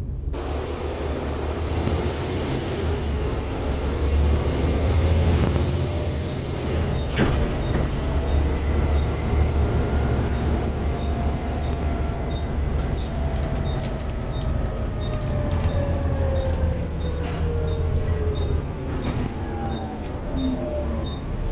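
Volvo B7TL double-decker bus heard from inside while driving: a deep steady drone with engine and transmission tones slowly rising and falling in pitch as it speeds up and slows. A single knock about a third of the way in, then a regular ticking of about one and a half ticks a second.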